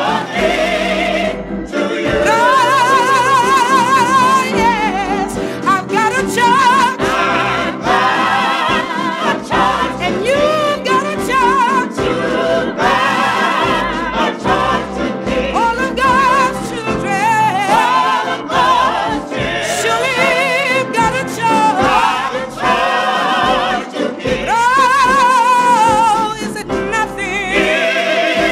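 Gospel vocal group singing: a lead voice with heavy vibrato and sliding melismatic runs over sustained group harmony.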